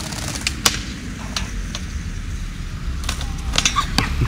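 Skateboard wheels rolling over paving stones with a steady rumble, broken by a few sharp clacks of the board, several of them close together near the end.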